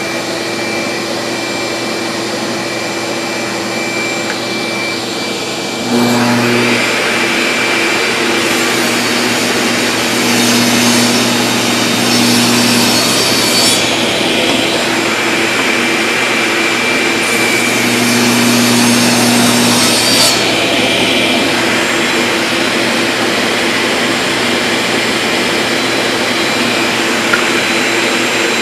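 A shop vacuum runs steadily. About six seconds in, a table saw starts and runs alongside it, cutting a dado in wood over repeated passes. The cut sounds harsher for several seconds around the middle and again later.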